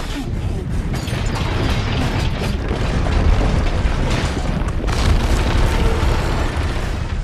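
Sound design of a high-rise building collapsing: a continuous deep rumble with crashing and cracking debris, peaking twice near the middle.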